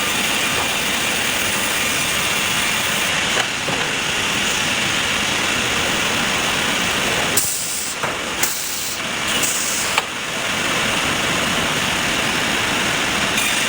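Sawmill machinery running with a steady, loud hiss-like noise, broken by a few short dips and clicks about two-thirds of the way through.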